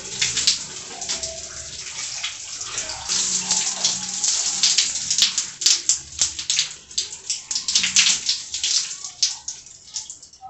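Running water splashing irregularly as conditioner is rinsed out of hair and oil off the body; it eases off near the end.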